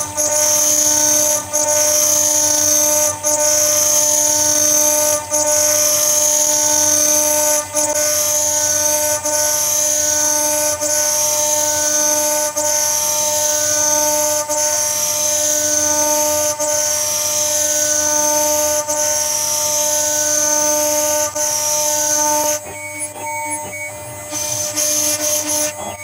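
CNC router spindle running at 18,000 rpm, milling acrylic with a single-flute solid-carbide upcut spiral bit through soapy-water coolant: a steady high whine over a hiss of cutting. The sound dips briefly every second or two, and near the end the hiss drops away and it goes quieter for about a second and a half.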